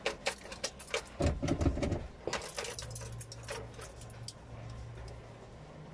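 Keys jangling and clicking as they are handled. A faint steady low hum starts about halfway in.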